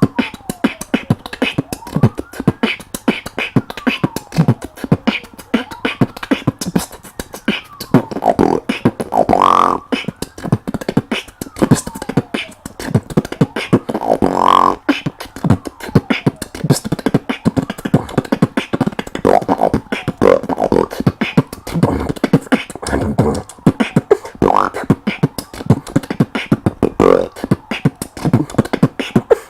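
Beatboxing: fast mouth-made kick, snare and hi-hat clicks in a dense rhythm. There are rising and falling pitched sweeps over the first several seconds, and a couple of brief held vocal tones in the middle.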